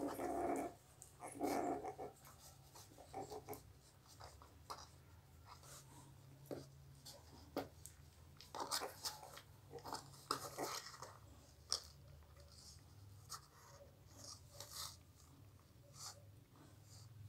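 Newborn pitbull puppies nursing: two short whines within the first two seconds, then scattered soft clicks and smacking sounds of suckling and shifting.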